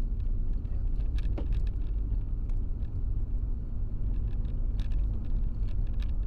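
Steady low rumble of a car driving on a wet road, heard from inside the cabin by a dashcam, with faint scattered ticks of raindrops hitting the windshield.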